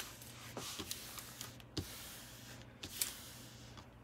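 Hands rubbing and smoothing the protective cover sheet of a diamond painting canvas on a wooden table: soft rustling and crinkling with a few sharp clicks, the loudest about two and three seconds in.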